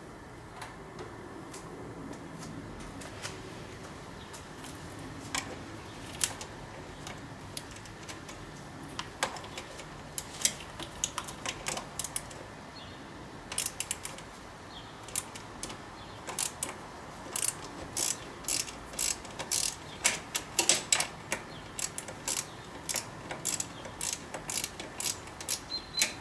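Ratchet wrench clicking as it turns the throttle body bolts, in short runs of quick clicks that come sparsely at first and crowd together in the second half.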